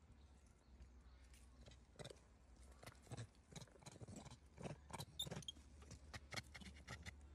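Faint scattered clicks and small taps from the macaques moving and handling each other, growing more frequent after about two seconds, over a low steady hum.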